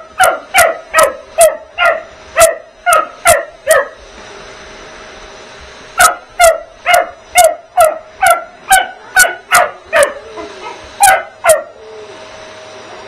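Springer spaniel puppy barking in rapid runs, about two barks a second, at a running vacuum cleaner: one run, a pause of about two seconds, a second run, then two more barks. The vacuum's steady hum runs underneath.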